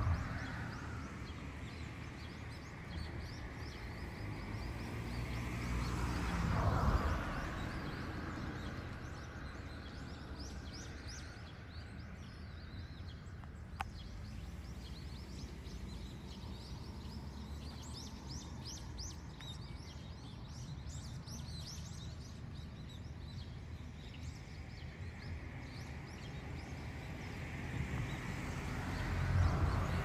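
Outdoor riverside ambience: a steady bed of noise with a rushing swell that builds and fades about six seconds in and again near the end, and faint quick high chirps in between.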